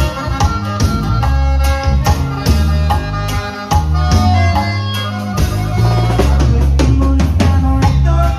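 Live norteño band playing an instrumental passage: button accordion over steady bass notes and a drum kit keeping a regular beat.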